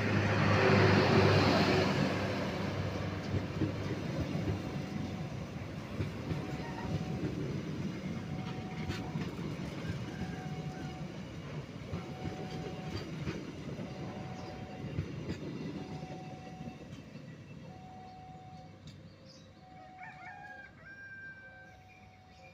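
Indonesian passenger train's coaches rolling past on the rails, the wheel noise loudest at first and fading steadily as the train pulls away. A rooster crows near the end.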